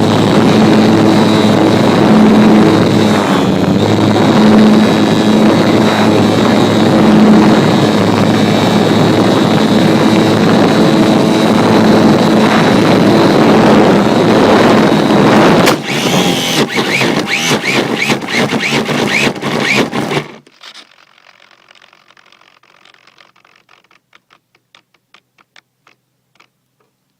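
Remote-control plane's motor and propeller running at full throttle with heavy wind rush, very loud and steady, heard from a phone taped to the plane. About sixteen seconds in the sound turns choppy with knocks, then cuts off abruptly a few seconds later as the plane crashes, leaving only faint ticks.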